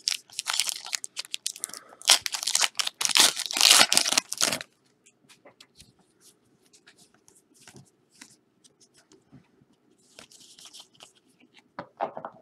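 Plastic trading-card packaging being torn open and crinkled for the first four or five seconds, then faint scattered clicks of cards being handled.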